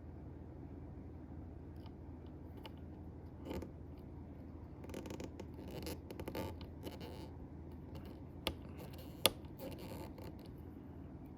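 Faint scratching and scraping of a small screwdriver working the pocket-clip screws out of a SOG Terminus XR folding knife, with two sharp metallic clicks near nine seconds in. A steady low hum sits underneath.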